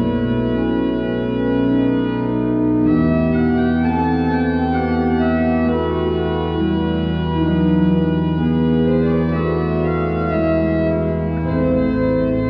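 Organ music: slow, sustained chords over long held bass notes, the bass changing about three seconds in and again near the end.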